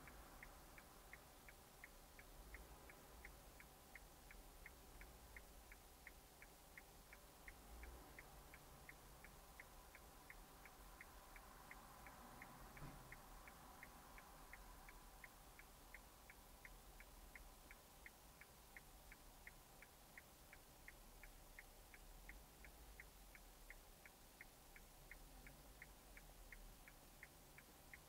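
Faint, perfectly even ticking, about two and a half ticks a second, from a car's indicator flasher relay inside a stopped car, over a low cabin rumble.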